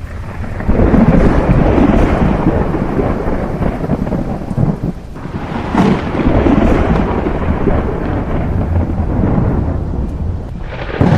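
Rolling thunder over steady rain: long, deep peals of rumble swell about a second in, ease off briefly around five seconds, build again, and surge once more near the end.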